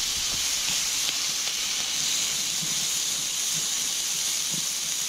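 Wild mushrooms sizzling steadily in vegetable oil in a frying pan over a campfire.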